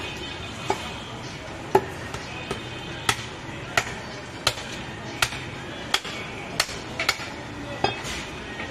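Heavy butcher's chopping knife striking a goat head and the wooden chopping block beneath it: about eleven sharp chops at an even pace, a little more than one a second.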